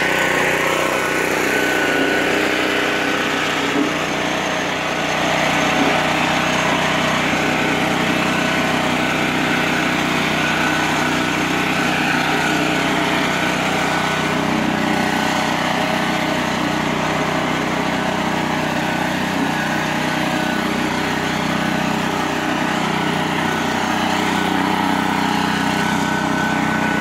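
Small single-cylinder engine of a self-propelled walk-behind lawn mower running steadily at an even speed, freshly overhauled.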